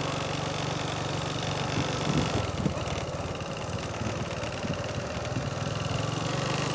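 Small vehicle engine running steadily at low speed while the vehicle rolls slowly along. Its note wavers and breaks up a little over two seconds in, then settles.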